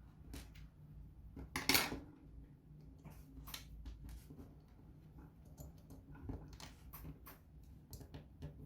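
Small metal tools clicking and tapping against phone parts during a repair, with one louder scraping rustle about two seconds in, over a steady low hum.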